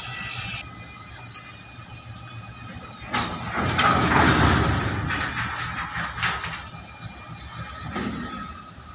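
Freight wagons rolling slowly through a railway yard during shunting: wheel flanges squealing in short high-pitched whines, with a loud stretch of rattling and clanking over the rail joints in the middle.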